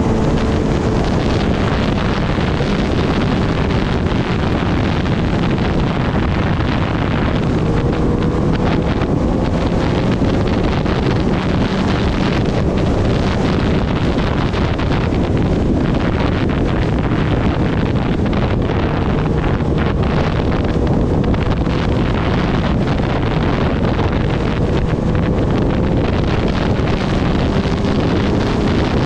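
Heavy wind noise on the microphone while riding a Kawasaki Ninja ZX-10R, with the bike's inline-four engine running faintly underneath at a steady cruise, its pitch creeping up a few times.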